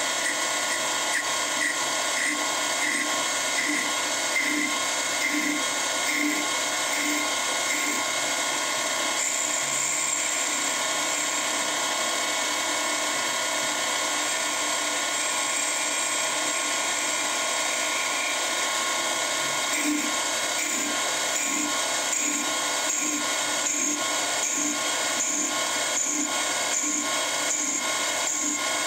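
SIEG SC4 mini metal lathe, converted to CNC, spinning a wooden workpiece while its CNC-driven tool cuts into the wood: a steady motor whine with the cutting noise, pulsing about twice a second for the first several seconds and again from about two-thirds of the way through.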